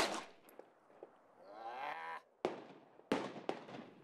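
Colt Competition 1911 9mm pistol firing two shots about two-thirds of a second apart, about two and a half and three seconds in, the second followed by a fainter crack. Before them comes a drawn-out call with a wavering pitch.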